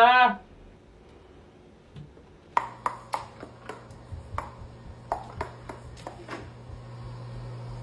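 A run of about a dozen sharp clicks, each with a brief ring, starting about two and a half seconds in and coming irregularly, roughly three a second, over a steady low hum.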